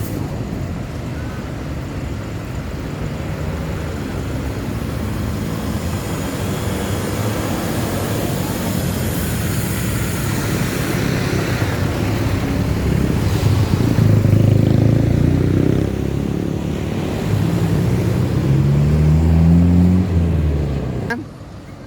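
Road traffic rumble building to a large bus engine passing close. In the last few seconds its engine note rises as it accelerates, then the sound drops away suddenly.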